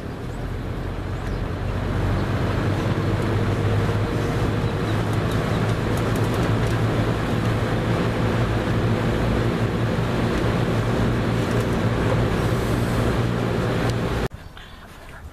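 1987-88 Lasko Galaxy 3746 box fan running on its low setting: a steady motor hum under the rush of air from the blades, growing a little louder over the first couple of seconds. The sound cuts off sharply about a second before the end.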